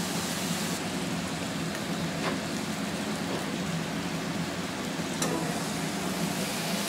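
Sliced meat sizzling steadily in a hot wok as it is stir-fried with metal tongs, with a few short clicks of the tongs against the pan.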